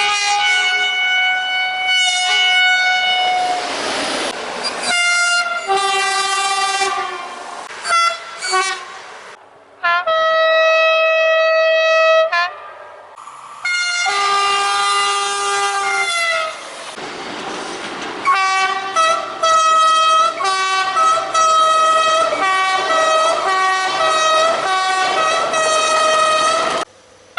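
SNCF train horns sounded in a string of spliced recordings: two-tone horns alternating between notes in quick toots and short melodic patterns, one long steady blast in the middle, and the rush of a passing train twice between the horn calls.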